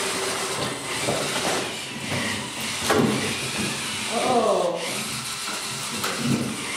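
FIRST Tech Challenge robots' small electric drive motors whirring as they maneuver around the field, with background voices of onlookers and a brief exclamation about two-thirds of the way in.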